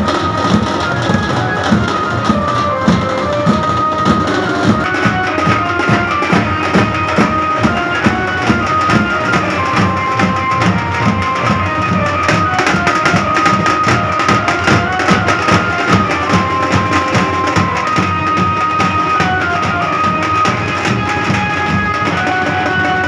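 Live street band: large barrel drums beating a steady, driving rhythm, with a single high melody line stepping through held notes over it.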